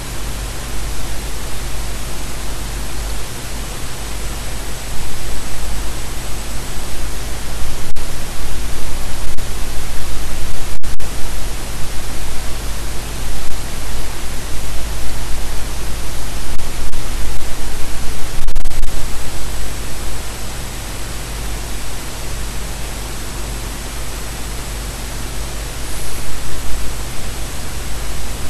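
Loud, steady static-like noise: a hiss spread across the whole range with a heavy low rumble beneath it and a faint high whistle, cut for an instant a few times around the middle.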